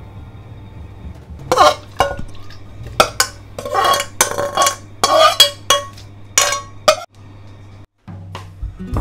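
Metal spoon scraping and clinking against a hammered aluminium saucepan as boiled bamboo shoots are scooped out of it. It is a run of sharp clinks and scrapes that starts about a second and a half in and stops near the end, with faint background music underneath.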